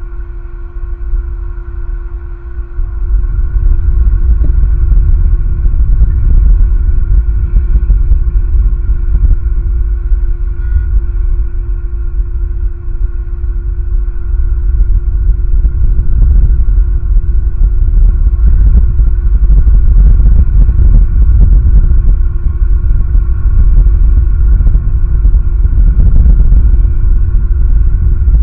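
Wind buffeting the eagle-cam's microphone: a loud, gusting low rumble that picks up about three seconds in, with a faint steady whine underneath.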